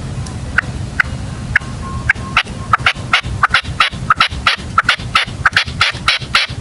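Caged decoy red-legged partridge calling: short, sharp calls, a few at first, then quickening to a run of about three or four a second.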